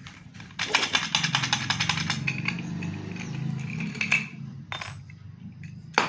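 Steel padlock being handled, clicking and rattling in the hands as its shackle is worked, in a run of fast clicks lasting a few seconds. Several sharper clicks come near the end.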